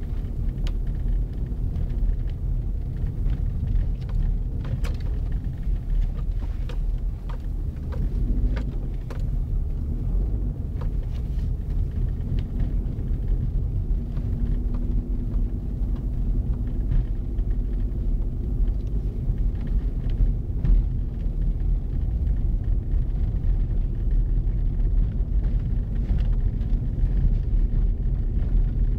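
Car driving on a snow-covered road, heard from inside the cabin: a steady low rumble of engine and tyres, with a faint engine hum that rises and falls about halfway through.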